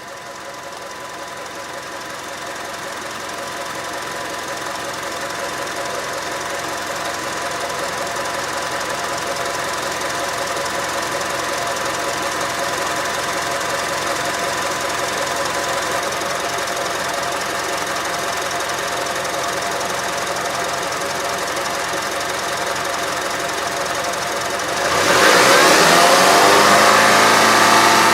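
Car engine running steadily, growing louder over the first several seconds. About 25 s in it becomes much louder and its pitch sweeps up and down.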